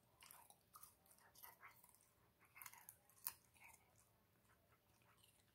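Faint sound of a chow chow chewing raw carrot: a run of crisp crunches with the sharpest about three seconds in, tapering off after about four seconds.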